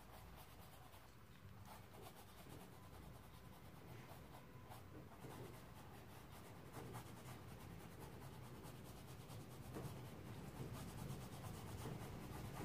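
Faint scratchy rubbing of a paintbrush working oil paint across a canvas, over a low rumble of wind.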